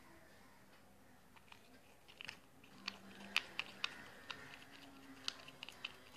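A thin stick clicking and scraping against the sides of a small plastic pot while stirring a Vaseline-based lip balm mixture: light, irregular clicks starting about a second and a half in.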